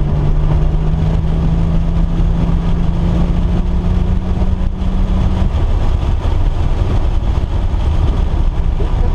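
A motor vehicle's engine running over a loud, continuous low rumble, holding one steady note for about five seconds before the note drops away.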